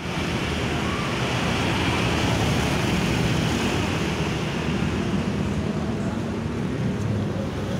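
Tour coach's engine idling with a steady low hum, under a constant wash of street traffic noise.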